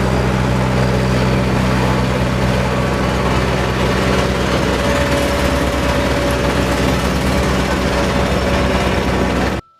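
A vehicle engine running steadily at an even speed, cutting off abruptly near the end.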